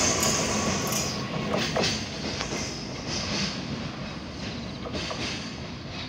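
JR Freight container train's Koki container flatcars rolling past and away, wheels clacking over rail joints now and then, the rumble fading as the tail of the train recedes.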